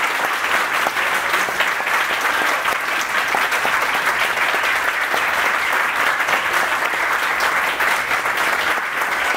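A roomful of people applauding: dense, steady clapping that holds at the same level throughout.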